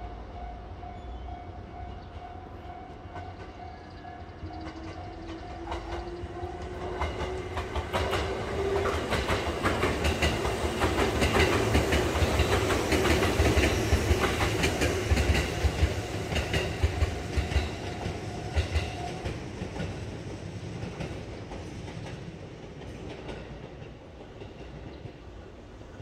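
An electric commuter train passes over a level crossing, its wheels clacking over rail joints. The noise builds to a loud peak around the middle and fades toward the end, with a motor whine rising in pitch as the train approaches. A steady level-crossing alarm tone rings through the first part and stops about three quarters of the way through.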